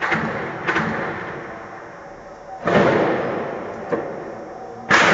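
Shelling and gunfire: a few sharp reports and two heavier blasts, one about midway and one near the end, each followed by a long rolling echo.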